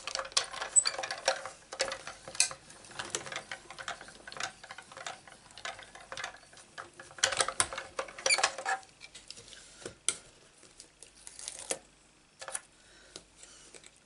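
Hand-cranked die-cutting machine being turned to roll a die sandwiched between acrylic cutting plates through it, with a run of irregular clicks and clatter from the crank and the plates. The clatter is heaviest at the start and again about halfway through, thinning to a few sharp clicks near the end.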